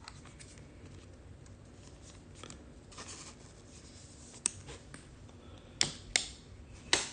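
Trading cards being handled by hand: soft rubbing and sliding of card stock, with four sharp clicks or taps in the second half.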